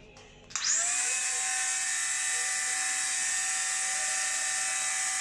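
Bosch GWS 12V cordless mini angle grinder switched on about half a second in, spinning up with a quick rising whine and then running steadily at full speed, free of load.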